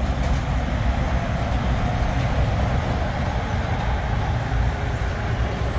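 Steady rumble of road traffic and running vehicle engines, with no single event standing out.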